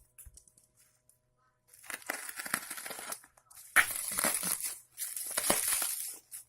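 Packaging being torn and crumpled by hand, in three rustling, crackling spells with short pauses between.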